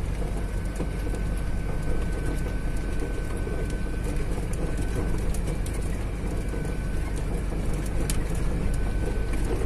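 Vehicle driving along a rough dirt road: steady engine and road noise, with light rattles. A faint thin high tone comes and goes.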